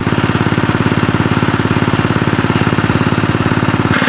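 Small engine running steadily with a fast, even chug; its tone shifts slightly just before the end.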